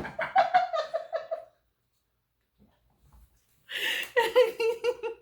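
People laughing in two bouts: a quick run of 'ha-ha' pulses for about a second and a half, a pause, then another burst of laughter near the end.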